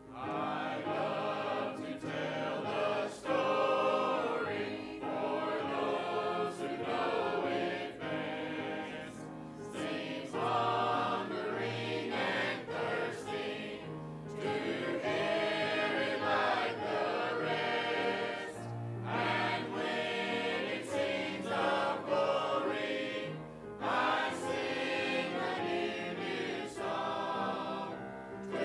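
Small church choir singing a hymn together, its sung phrases broken by short pauses for breath about every four to five seconds.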